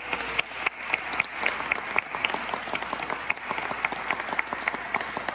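Audience applauding: many hands clapping together, with the claps of one person close to the microphone standing out sharply.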